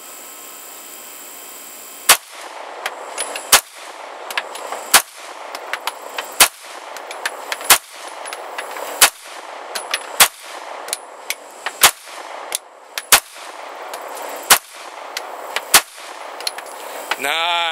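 CZ 75 SP-01 Phantom 9mm pistol firing slow, aimed single shots: about eleven shots, one every second and a bit.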